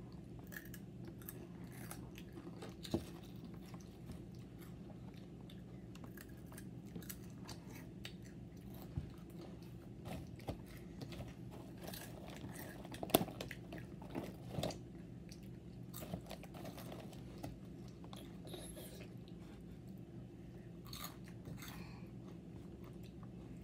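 Crunchy snack sticks being bitten and chewed, irregular short crunches over a steady low hum.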